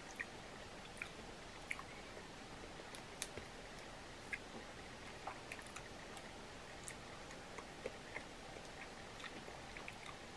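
Quiet chewing and the small, irregular clicks of crab-leg shell being picked apart by hand.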